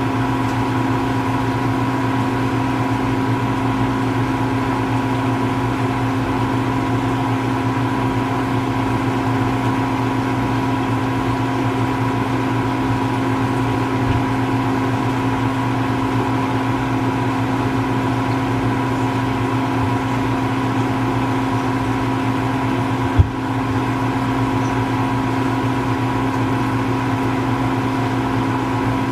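A steady mechanical hum at an unchanging pitch, with a single sharp click about 23 seconds in.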